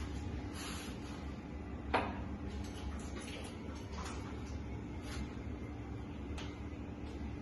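Workshop sounds: a steady low hum with scattered light clicks and one sharp clank about two seconds in.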